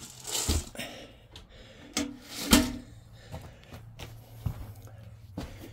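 A galvanized metal chicken feeder full of pellets being handled, with a scrape near the start and a louder knock about two and a half seconds in.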